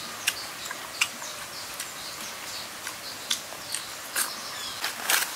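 Scattered soft clicks and crunches of a person eating by hand, chewing food and handling leafy greens, with a denser run of crackles near the end.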